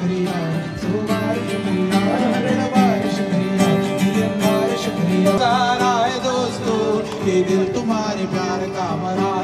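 A man singing live to his own acoustic guitar, amplified through a microphone and PA speaker: a wavering sung melody over steady guitar chords.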